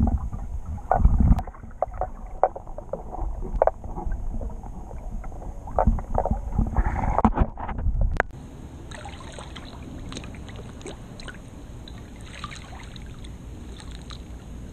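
Muffled knocks and churning water noise picked up by a camera held underwater, with a burst of knocks near the end that cuts off abruptly about eight seconds in. After that come fainter, steadier water sounds with light splashing ticks.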